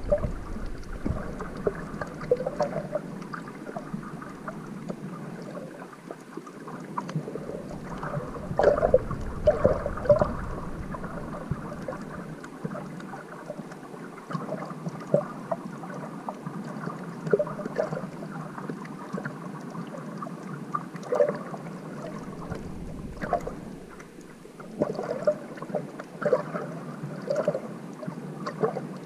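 Muffled water noise picked up by a camera held underwater just below the surface: steady sloshing and swirling, with scattered small clicks and louder surges every few seconds.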